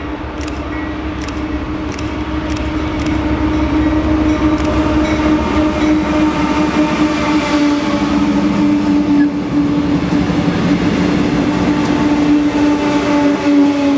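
Freight train passing close by: a steady pitched drone under a low rumble, with sharp clicks of wheels over rail joints in the first few seconds, getting louder after about four seconds.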